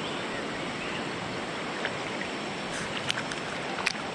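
Steady rush of stream water, with a few short clicks about three seconds in.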